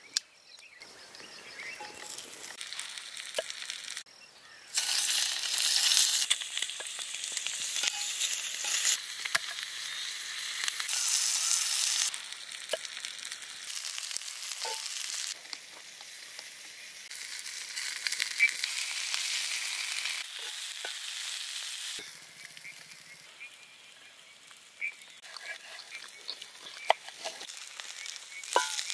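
Food sizzling in a cast-iron skillet over an open fire: a crackling hiss with scattered pops, swelling and dropping abruptly several times.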